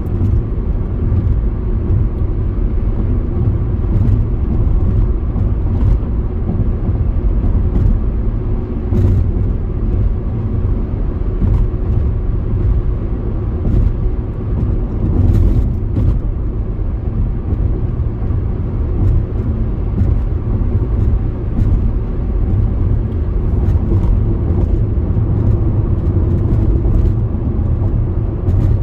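Car driving along the road: a steady low rumble of engine and tyre noise.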